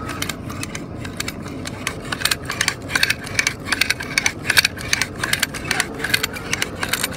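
Electric vehicle winch pulling its steel cable under load through the rigging, with rapid irregular metallic clicking and rattling over a faint steady hum; the clicking is densest in the middle of the stretch.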